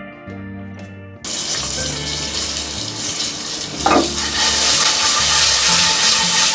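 Soft guitar music, then about a second in, popcorn kernels coated in oil, salt and turmeric go into hot oil in a steel pressure cooker and start sizzling loudly; the sizzle gets louder again about four seconds in.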